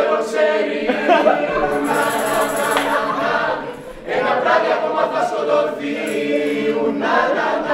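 Several voices singing together in chorus, without instruments, breaking off briefly about four seconds in before the singing resumes.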